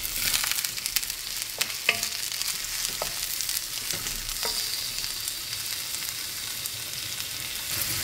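Sliced onions sizzling in hot oil in a metal pan, with a wooden spatula scraping and tapping the pan as they are stirred.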